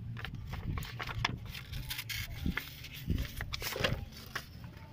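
Scattered light clicks and taps of metal parts and sandpaper being handled at a truck's bare front wheel spindle, over a steady low rumble. A brief animal-like call comes near the end.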